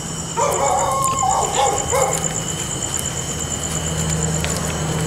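Dogs barking and yelping in a burst of several calls during the first two seconds, over a steady high electronic tone and a fast, even high-pitched ticking.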